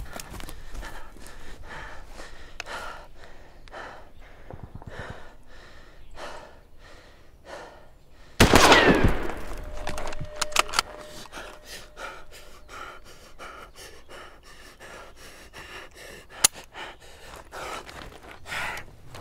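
A man panting hard, a quick breath about every half second. About eight seconds in, a single loud gunshot-like bang rings out and dies away over a couple of seconds, and the heavy breathing goes on.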